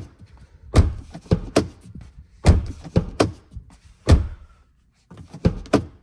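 Tesla car door fitted with an aftermarket Hansshow soft-close latch, worked over and over: a string of sharp thunks and clicks about once a second as the door is released and pushed to and the latch draws it shut.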